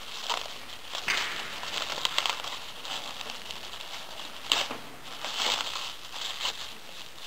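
Clear plastic stretch wrap crinkling and crackling as gloved hands peel it off and bunch it up, in irregular rustles with a sharp crackle about four and a half seconds in.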